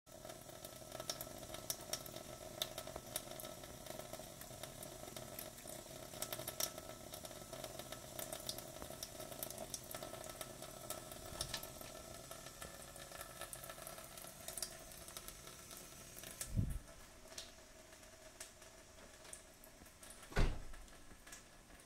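Thin stream of tap water running steadily from a kitchen faucet into a stainless steel sink, with small irregular clicks as a cat laps from it. Later the water sound is gone and there are two short dull thumps, the louder one near the end as a cat jumps down from a wall shelf.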